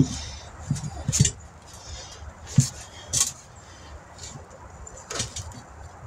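A tire being pushed back onto an alloy wheel rim by foot: irregular thumps and scuffs of shoes stepping on the rubber sidewall, with short scraping sounds as the bead works over the rim.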